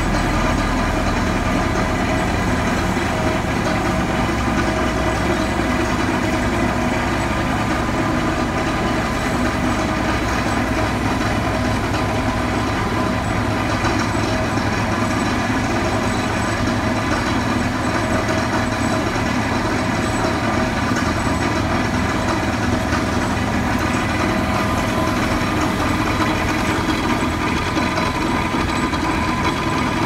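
Heavy diesel engine of a pile-driving crane rig idling steadily: a constant low drone with several steady higher-pitched tones.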